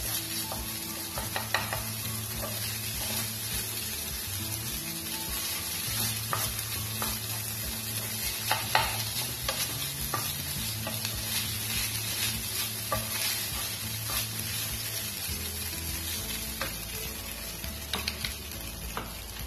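Cooked rice sizzling in a hot non-stick frying pan as it is stirred and turned with a wooden spatula, with steady frying hiss and scattered clicks and scrapes of the spatula against the pan.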